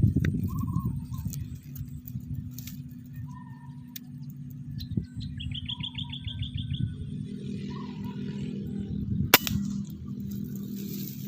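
Wild birds calling: a few short low call notes, and a rapid high trill in the middle, over a steady low rumble. There is one sharp click about nine seconds in.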